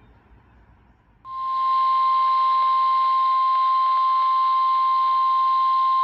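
NOAA Weather Radio warning alarm tone: one steady high tone of about 1050 Hz comes in about a second in and holds unbroken over radio hiss. It signals the start of a warning broadcast, here a severe thunderstorm warning.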